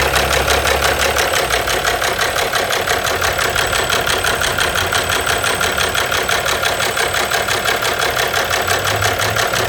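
Car engine idling with a rapid, even knock, which the owner takes for an abnormal engine knock.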